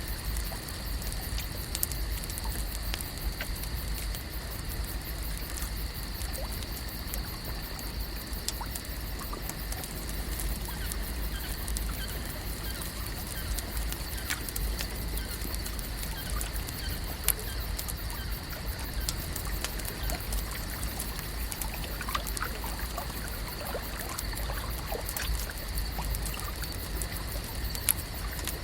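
Lake ambience: water lapping and trickling at the shore, with scattered small clicks and splashes over a steady high-pitched drone and a low rumble. A few faint short calls come in a little past the two-thirds mark.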